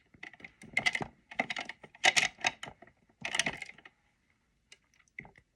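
Tiny plastic toy pieces and their small plastic case clicking and clattering as they are handled, in three clusters of clicks about a second apart, with only a few faint ticks afterwards.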